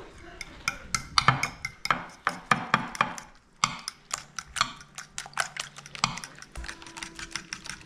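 Metal fork whisking eggs in a glass baking dish, its tines clicking rapidly and irregularly against the glass, with a brief pause partway through.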